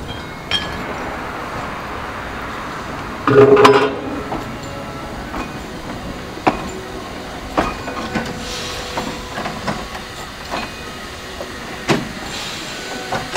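Narrow-gauge steam locomotive rolling slowly past, with steam hissing and scattered clanks and clicks of its wheels and running gear. One short, loud blast about three and a half seconds in stands out above the rest.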